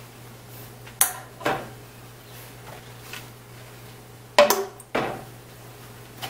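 Glass canning jars knocking and clinking as they are lifted off a sheet pan and set down into an aluminium pressure canner. There are four separate knocks: two close together about a second in, and two more, the loudest, a little after four seconds and at five seconds.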